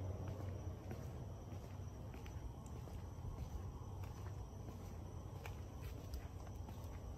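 Faint crickets chirping steadily in the dark, under a low rumble from a handheld phone microphone, with a few soft clicks.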